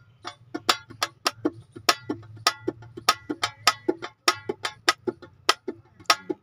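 A spoon struck against a metal bowl as hand percussion, ringing clinks about three to four a second in an uneven, lilting beat.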